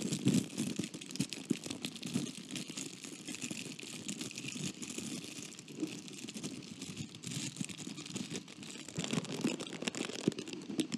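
Clear plastic sleeve around a fountain pen crinkled and rubbed against a microphone's mesh grille: close-up crinkly crackling and rustling, a steady stream of tiny crackles.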